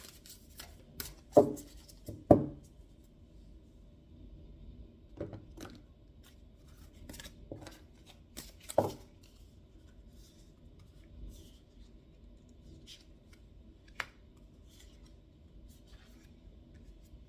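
A deck of reading cards being shuffled and handled, with sharp snaps and taps as cards are cut and laid down. The loudest come about one and a half and two and a half seconds in, more follow near five to nine seconds and one near fourteen, with light rustling between.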